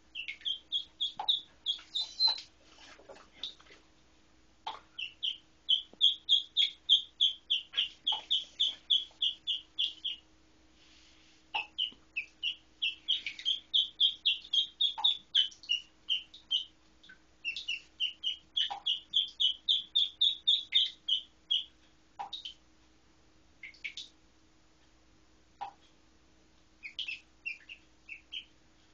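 Lone duckling peeping: runs of short, high peeps, about three a second, broken by short pauses, becoming sparser single peeps and pairs in the last third.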